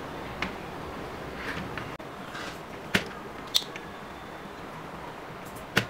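A few light, sharp clicks and taps of small tools and parts against a clamp meter's circuit board during a capacitor swap, over a steady low hiss.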